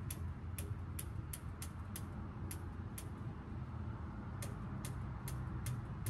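Gas grill's burner igniter clicking over and over, about two to three clicks a second with a short pause in the middle, over a steady low rumble. The fourth burner is not lighting.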